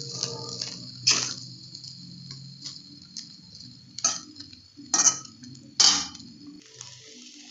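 Steel spoon clinking and scraping against an iron kadai as fried rice is lifted and turned, four sharp clinks spaced irregularly with a few softer taps between, over a steady hiss of the rice frying.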